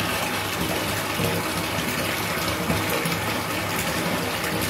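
Water running steadily into a filled bathtub, an even rushing splash with a low rumble.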